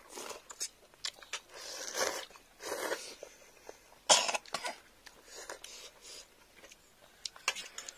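Instant noodles being slurped up from a tray in a series of short noisy sucks, the loudest about four seconds in.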